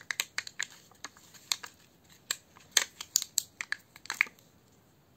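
Hands handling coins and the plastic pockets of a cash-stuffing budget binder: irregular sharp clicks and light crinkling that stop about four seconds in.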